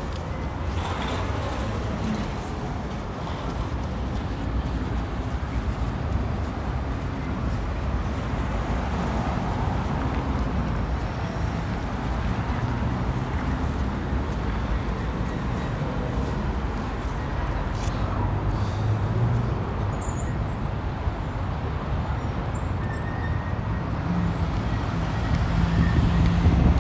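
Steady city street traffic: road vehicles passing on a busy road, a continuous rumble with no breaks.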